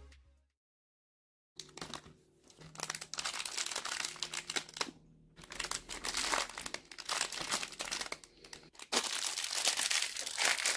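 Crinkling and rustling of LEGO packaging handled close to the microphone, a dense irregular crackle in bursts. It starts about one and a half seconds in and pauses briefly a few times.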